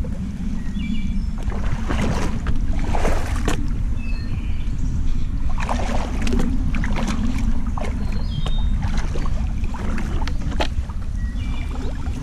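Steady low rumble with irregular rustles and sharp cracks, and a few short high chirps.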